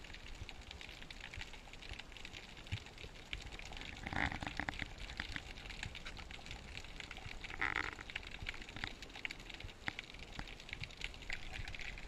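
Underwater sound picked up by a diver's camera: a constant fine crackling of tiny clicks, broken twice, about four and eight seconds in, by a short gush of the diver's exhaled regulator bubbles.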